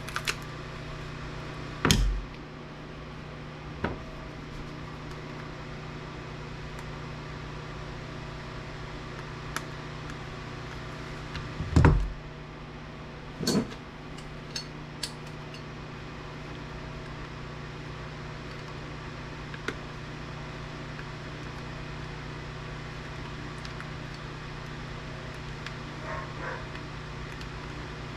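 Scattered knocks and clicks of tools and parts as the circuit board and LCD display of an APC battery backup unit are pried apart, the loudest near the start and about halfway through. A steady background hum with several held tones runs under them.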